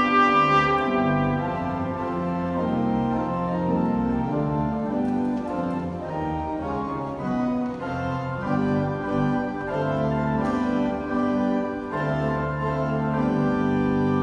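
Trumpet and church organ playing together; the trumpet ends its phrase about a second in and the organ plays on alone, settling on a held chord near the end.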